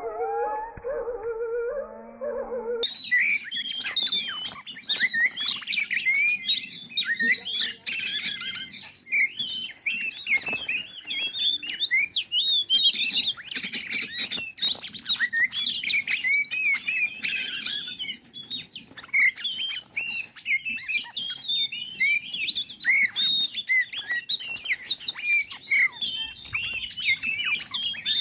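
Oriental magpie-robin song: a dense, continuous run of rapid chirps and whistled notes, starting abruptly about three seconds in after a short low, wavering tone.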